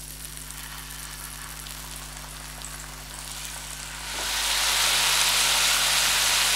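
Beef tenderloin steaks sizzling in butter on a hot non-stick tawa as the pieces are laid down. A faint sizzle with a few crackles at first, then a much louder, steady sizzle from about four seconds in.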